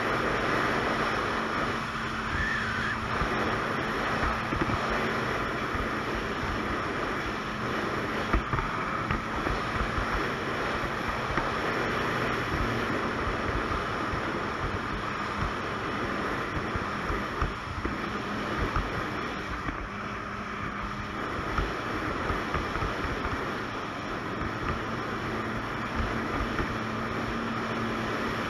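Ski-Doo Expedition 900 ACE snowmobile cruising at a steady speed, its three-cylinder four-stroke engine running evenly, with wind on the microphone.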